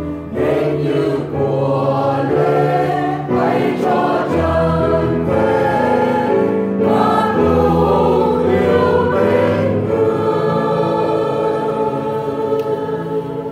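Choir singing a Vietnamese Catholic hymn over an accompaniment with steady bass notes, closing on a long held chord from about three quarters of the way in.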